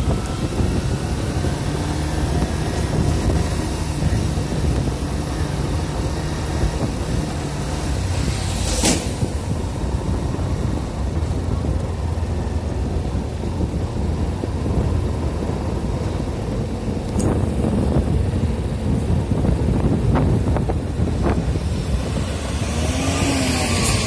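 Steady low engine hum from running vehicles, mixed with wind rumbling on the microphone, and a single sharp click about nine seconds in.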